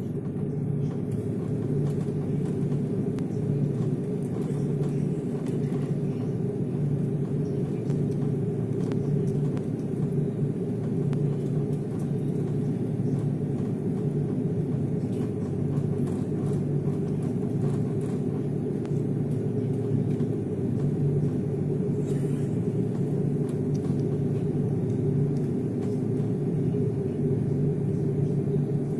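Steady low rumble inside an airliner's cabin as it taxis, the jet engines running at taxi power.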